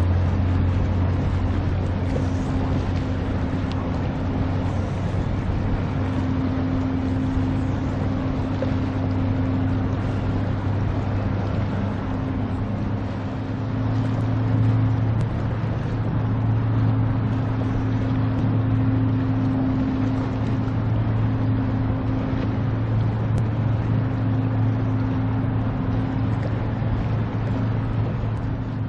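Steady low drone of ships' engines as a passenger boat and a car ferry get under way, over the wash of their wakes. The drone steps up slightly in pitch about halfway through.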